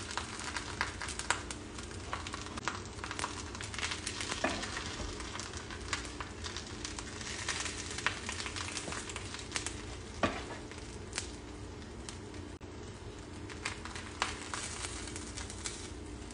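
Olive oil sizzling steadily under a flour tortilla in a hot frying pan, with scattered taps and scrapes of a wooden spoon as chicken filling is spooned from a second pan onto the tortilla.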